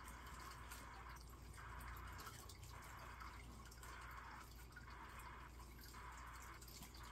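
Near silence: a faint hiss that breaks off briefly about once a second, over a low steady hum.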